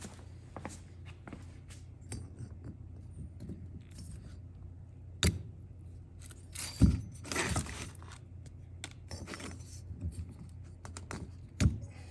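Small metal parts and hand tools clinking and rattling while being handled, with a few sharp clicks, one about five seconds in and one near the end, and a denser burst of clattering a little past the middle.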